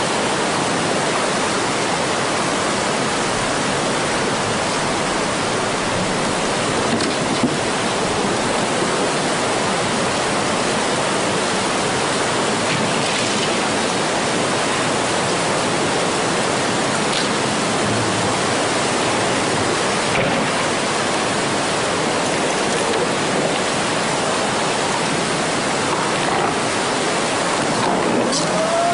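Tsunami floodwater rushing through town streets: a steady, loud rushing of water with no let-up, with one short knock about seven seconds in and a rising tone starting just before the end.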